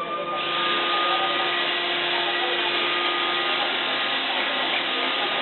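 iRobot Roomba 520 robot vacuum cleaning, its vacuum and brush motors running steadily with a high whine over an even rushing noise. The whine finishes rising and the rushing noise swells in the first half second as the motors come up to speed.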